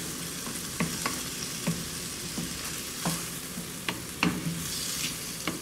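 Shrimp sizzling in a hot skillet while a wooden spoon stirs them, with short knocks and scrapes of the spoon against the pan every half second to a second.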